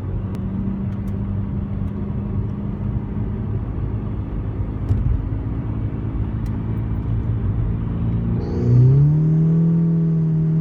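Volkswagen MK6 GTI's turbocharged four-cylinder engine running steadily under light load, then rising in pitch and getting louder about eight seconds in as the car accelerates.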